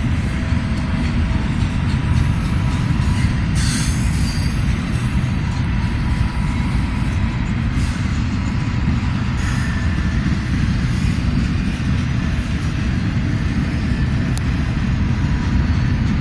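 Double-stack container freight train rolling past: a loud, steady low rumble of wheels on rail, with a faint steady high whine and a brief sharper screech about four seconds in.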